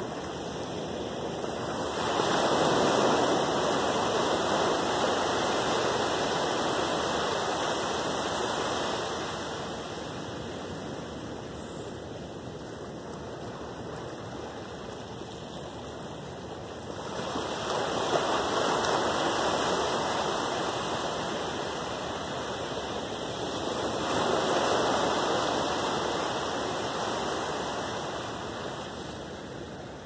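Small ocean waves breaking on a sandy beach and washing up the shore. The surf swells three times, about 2 s in, about 17 s in and about 24 s in, each time fading back over several seconds.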